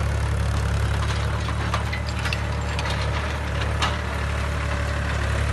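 Powertrac Euro 50 tractor's diesel engine running steadily while it drives a power harrow through dry soil, a low even drone with a few sharp ticks over it.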